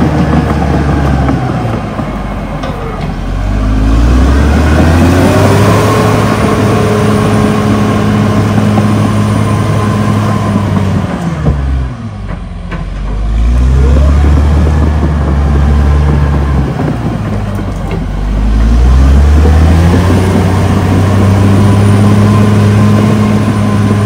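Caterpillar D6R XL bulldozer's diesel engine running loud, its revs dropping and climbing back up three times.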